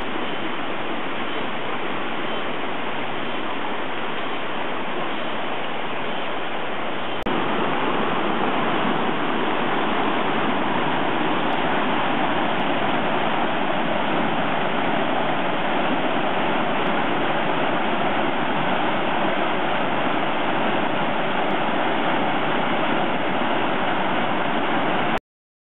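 Fast-moving flash-flood water rushing steadily. The sound gets louder at a cut about seven seconds in and stops abruptly near the end.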